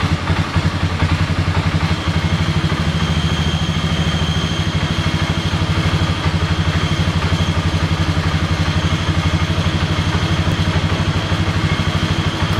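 Polaris Sportsman 500 ATV's single-cylinder four-stroke engine idling steadily with a fast, even thump, run after an oil change so the fresh oil circulates through the engine. A faint steady high whine joins about two seconds in.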